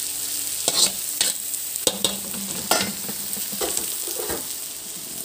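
Raw chicken liver and onions sizzling in a hot wok, with a steady hiss, while being stirred: a utensil scrapes and clicks against the pan several times.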